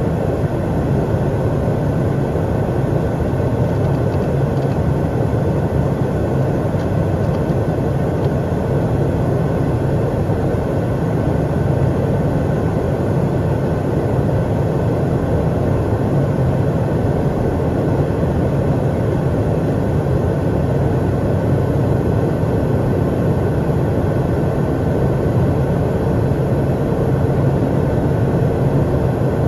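Steady in-flight cockpit noise of an Eclipse 500 very light jet: the constant hum of its twin Pratt & Whitney PW610F turbofans blended with the rush of air, with a faint steady high tone over it.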